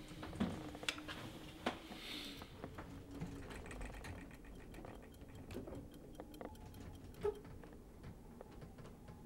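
Fast, even mechanical ticking, with a few sharper clicks in the first couple of seconds and one more a little after seven seconds.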